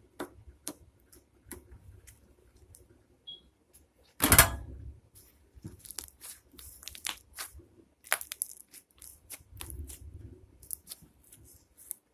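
Slime with shaving cream mixed in being squished and stretched by hand: scattered sticky clicks and crackles, with one louder burst about four seconds in.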